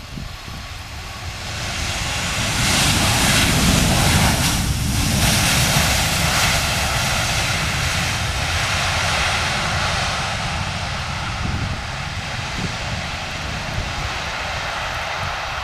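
Twin jet engines of an Airbus A319 swelling to a loud rushing roar just after touchdown, typical of reverse thrust on the landing roll, then holding a steady, slightly lower jet noise as the airliner rolls down the runway.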